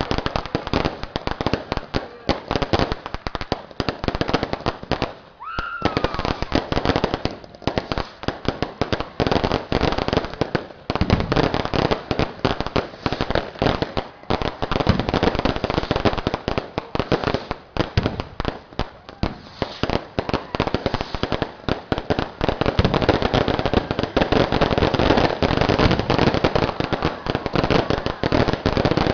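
Fireworks going off without pause: rapid bangs and crackling from rockets bursting overhead, densest near the end.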